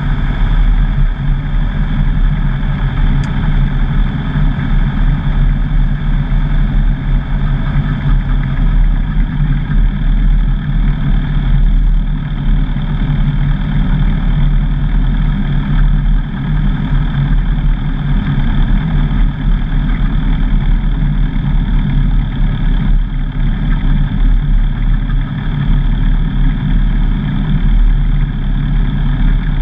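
Single-engine light aircraft's piston engine and propeller running steadily at low taxi power, heard from inside the cockpit.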